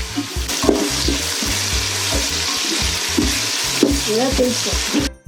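Chopped tomatoes and onions sizzling in hot oil in a pot as they are stirred and sautéed. The sizzle cuts off abruptly near the end.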